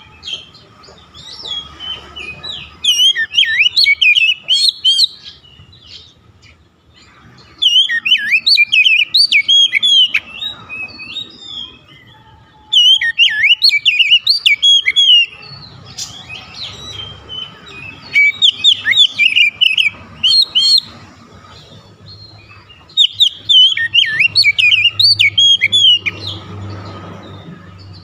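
Oriental magpie-robin singing in five bursts of rapid, varied whistled phrases separated by short pauses: the excited full song of a bird roused by a rival.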